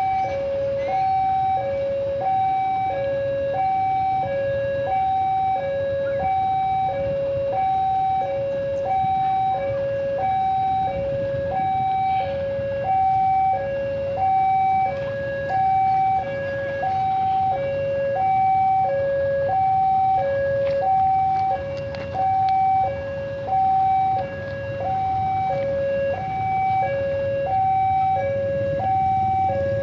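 Indonesian railway level-crossing warning alarm sounding while the crossing is closed for an approaching train: two electronic tones, high and low, alternating evenly about once a second each. A low rumble of waiting traffic sits beneath.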